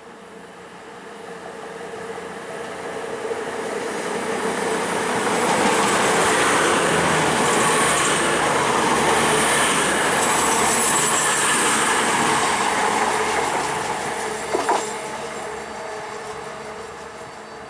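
CrossCountry Voyager diesel multiple unit running through the station: its engines and wheels grow louder as it approaches and are loudest for several seconds as the coaches go by, with a high hiss from the rails. It fades as it runs away, and there is one short clack about fifteen seconds in.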